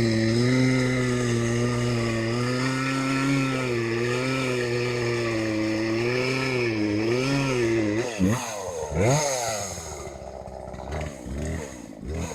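Chainsaw engine running at high speed with a slightly wavering pitch; about eight seconds in it revs up and down sharply a few times, then drops back to a lower, quieter idle.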